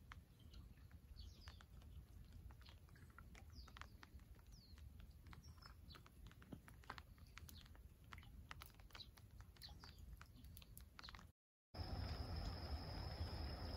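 Quiet outdoor ambience with scattered short, falling chirps of small birds and light ticks. After a cut near the end it changes to a louder steady low rumble with a thin, steady high tone.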